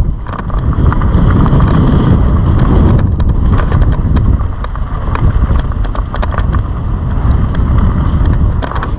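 Wind rushing over the microphone of a mountain bike as it rides fast along a dirt track, with tyres rolling on the dirt and frequent short clicks and rattles from the bike.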